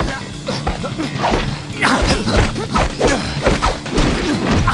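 Fight sound effects: a rapid run of blows, thuds and crashes, thickest from about two seconds in.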